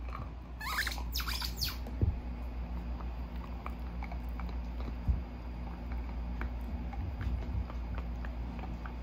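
Rubber squeaky dog toy squeaked several times in quick succession for about a second, near the start. Then a dog chews on a toy, with scattered small clicks and two dull thumps.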